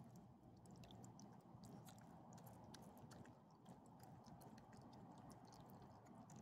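Small dogs chewing and licking soft chicken from a hand: faint, irregular wet clicks of mouths working, over a low steady background hum.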